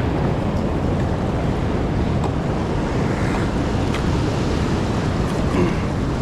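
Steady rushing of river water with wind buffeting the microphone.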